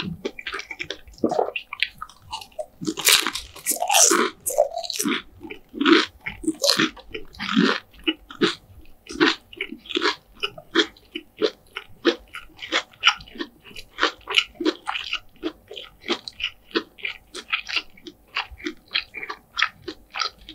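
Crispy fried chicken bitten and chewed close to the microphone. Loud crunching bites come in the first few seconds, then a steady chewing rhythm of about two to three crackles a second.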